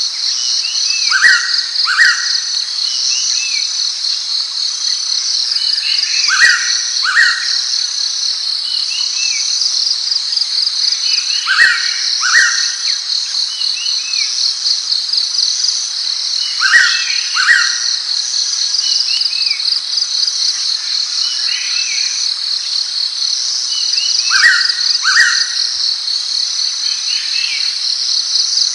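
Blue-winged pitta giving its two-note whistled call, repeated about every five seconds, five times. A steady pulsing insect buzz runs underneath, with faint chirps of other birds.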